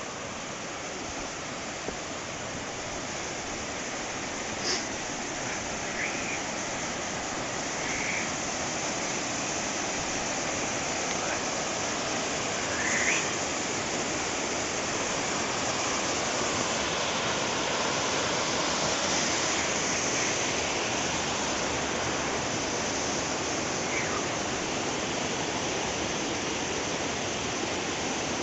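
Mountain valley stream rushing steadily, a continuous hiss of running water, with a few brief chirps over it.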